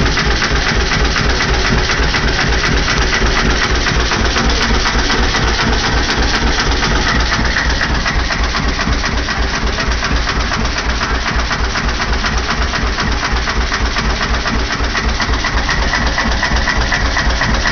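McCormick-Deering 1½ hp Model M single-cylinder hit-and-miss engine running steadily with an even rhythm, under load as it drives a pumpjack pumping water.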